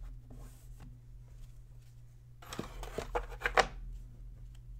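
Optic baseball trading cards being slid off the stack and flipped by hand: quiet at first, then about halfway in a quick run of card slides and snaps. A low steady hum underneath.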